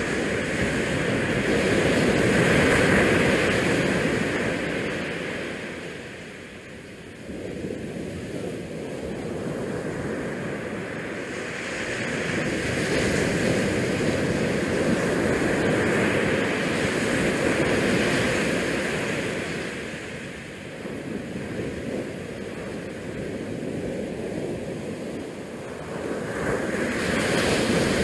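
Rushing noise of wind and small bay waves against the shoreline rocks, picked up by a walking camera's microphone, swelling and easing every several seconds.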